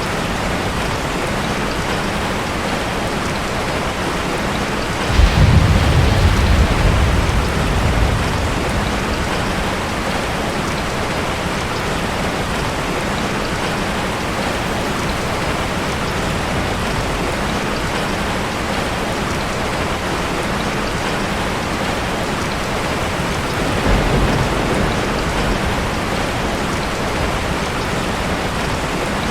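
Steady heavy rain. Two rolls of thunder rumble under it: a louder one about five seconds in that dies away over a few seconds, and a fainter one near the end.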